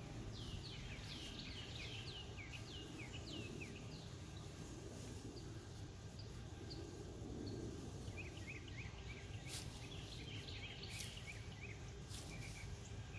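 A bird singing in two runs of short, quickly falling chirps, the first at the start and the second about two-thirds of the way through, over faint steady outdoor background noise. A few faint clicks come near the end.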